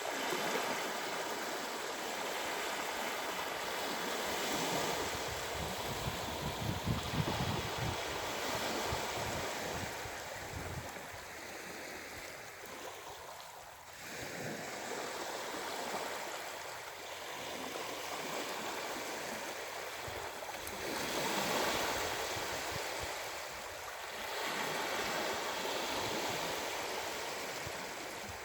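Ocean waves breaking and washing on the shore, the surf swelling and easing every few seconds.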